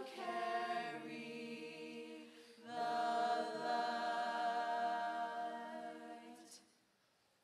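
High school show choir of women singing a cappella in sustained chords. The chord breaks off about two and a half seconds in, a new chord starts at once, and it fades away near the end, leaving silence.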